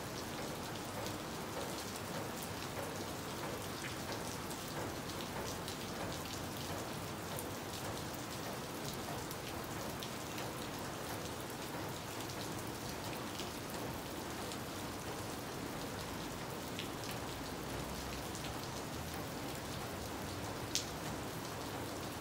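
Steady rain falling, an even hiss scattered with sharp ticks of nearby drops, and one louder tick near the end.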